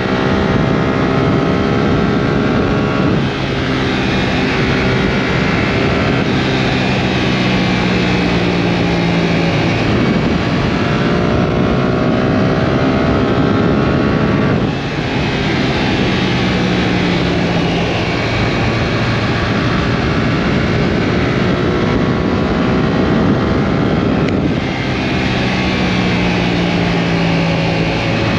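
Yamaha R7's 689 cc parallel-twin engine pulling hard while riding, its pitch climbing steadily, then dropping sharply with a brief dip in level about 3, 15 and 24 seconds in, as it shifts up a gear.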